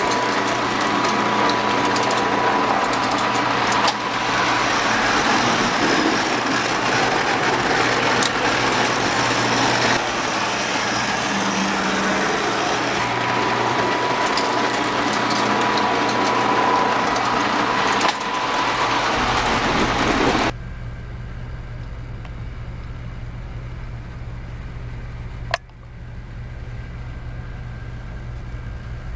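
Lionel postwar O27 toy trains running on a layout, with the steady rattle and rumble of wheels and motors on tin track. About twenty seconds in, the running cuts off suddenly, leaving a low steady hum, and a single sharp click follows a few seconds later.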